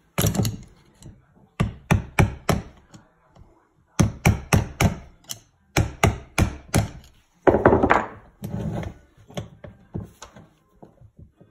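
Hammer blows on a screwdriver set against a removed disc-brake caliper on a wooden workbench: sharp metal knocks in quick bursts of three or four, with a longer scraping rattle about eight seconds in and lighter taps after it.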